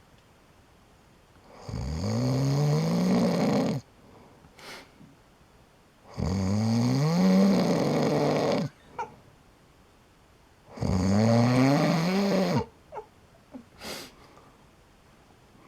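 Snoring: three long, loud snores about four to five seconds apart, each rising in pitch as it goes, with quiet breathing between and a few small faint noises after the third.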